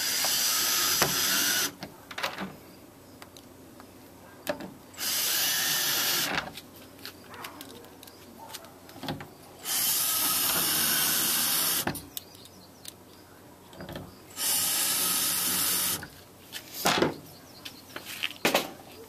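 A power drill runs in four short bursts of about one and a half to two seconds each, pre-drilling holes in the compost tumbler's plastic for the latch-hook screws. Small clicks and knocks from handling fall between the bursts.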